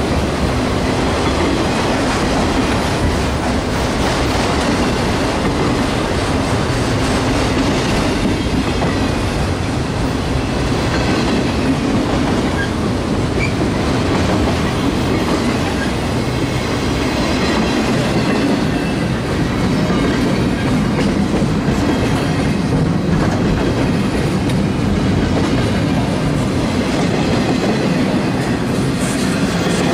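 Freight train rolling past at speed, a steady loud rumble of its cars with wheels clacking over the rail joints.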